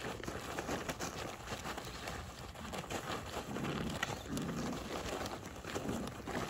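Australian Shepherd puppies scrambling and play-wrestling on a tarp: rustling and pattering of paws, with a couple of short low puppy growls a little past halfway.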